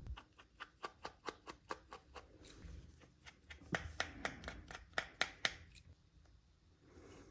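A quick run of small, sharp clicks and taps, about three or four a second, from tools and small parts being handled while a first-generation iPhone SE is taken apart. It stops about a second before the end.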